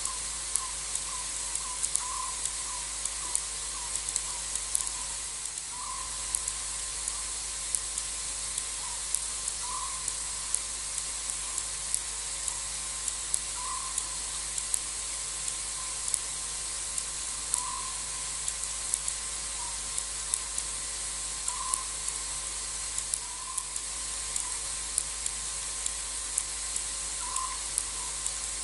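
Night bush ambience: a steady high-pitched insect drone, with a short call repeating about every four seconds and scattered faint clicks.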